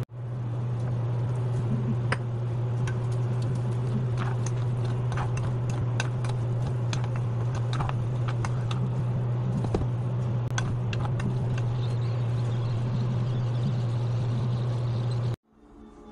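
Baby potatoes cooking down in a bubbling syrupy glaze in a pan, with scattered crackles and pops as the glaze reduces, and a wooden spatula stirring them. A steady low hum runs underneath, and the sound cuts off abruptly near the end.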